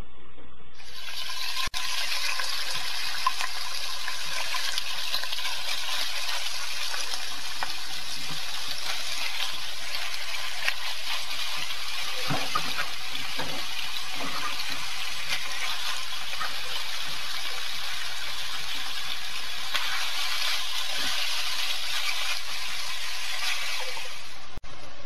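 Sliced pork sizzling steadily in a hot frying pan. The sizzling starts about a second in and cuts off near the end.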